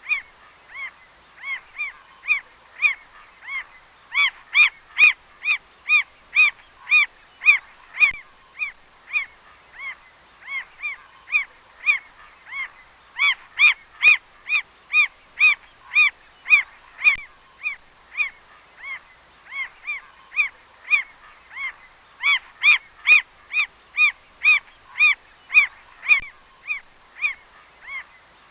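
Mockingbird calling: a long run of short, arched notes repeated about three times a second, louder in some stretches than others.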